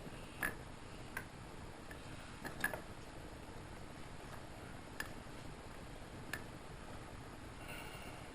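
A few scattered light clicks and ticks of hand tools and small metal engine parts being handled, spaced a second or more apart, over a quiet room background.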